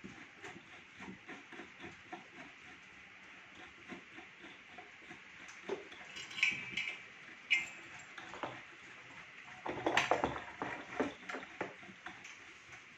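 Parts of a Freesub P8001X heat press being handled and fitted together: scattered clicks and knocks of hard plastic and metal. There are a few short ringing clinks about six to seven and a half seconds in, and a louder cluster of knocks and clatter around ten seconds in.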